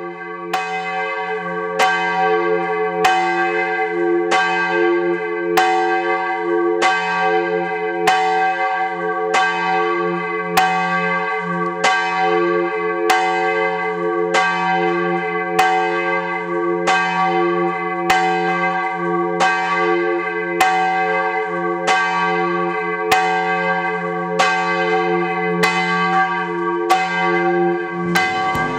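A church bell rung festively in its tower, struck at a steady pace about once a second, each stroke ringing on with a low hum that carries between strikes. The ringing stops near the end.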